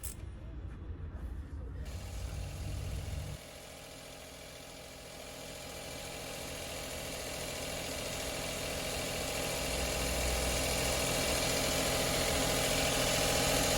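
Daihatsu Hijet's small three-cylinder engine idling: a low rumble for the first few seconds, then a steady whirring running note that grows slowly louder.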